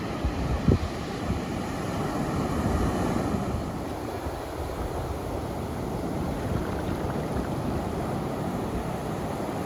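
Ocean surf washing onto a beach, with wind buffeting the microphone, swelling a little near the middle. A brief low thump just under a second in.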